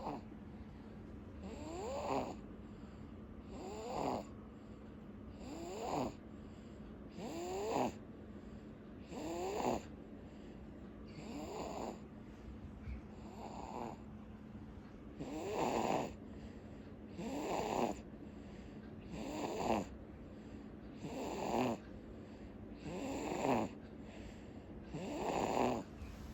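Sleeping baby boy snoring, one short snore with each breath about every two seconds, thirteen in all, over a steady low hum.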